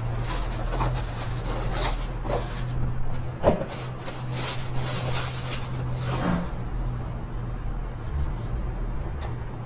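Unpacking noises: a thin cardboard product box opened by hand and a vegetable chopper pulled out of its clear plastic bag, with irregular rustling and crinkling that dies down for the last few seconds.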